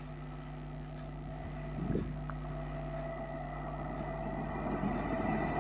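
WAG-12 electric freight locomotive approaching: a steady electric hum with several held tones, slowly growing louder.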